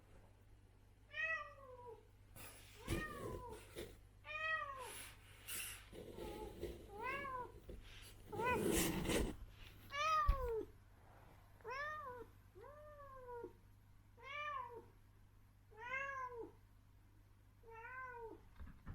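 Adult female cat meowing again and again, about ten separate meows, each rising then falling in pitch. Between the meows come short bursts of rustling or scuffling noise; the loudest is a little under halfway through.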